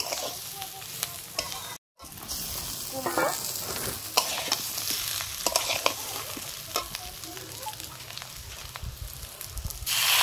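Flat metal spatula stirring and scraping shredded cabbage, potato and moong dal frying in a metal kadai: a light sizzle with many scattered clicks of the spatula on the pan. Just before the end, water is poured into the hot pan and it hisses loudly.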